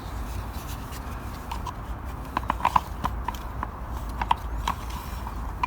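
Light, irregular clicks and taps of the disassembled heater blower motor and its rear cover being handled, over a steady low hum.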